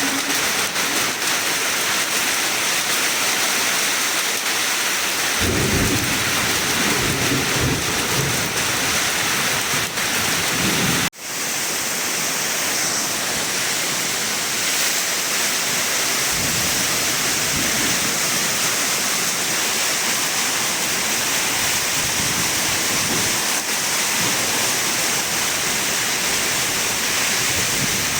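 Steady heavy rain from a summer thunderstorm, with a rolling rumble of thunder starting about five seconds in and lasting several seconds. The sound cuts out for an instant near the middle, then the rain carries on with fainter rumbles of thunder.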